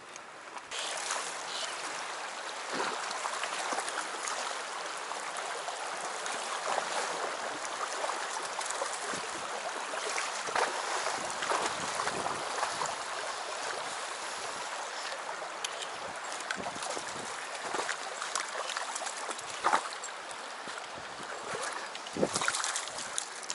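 Shallow mountain stream running over rocks: a steady rush of water, with a few light clicks now and then.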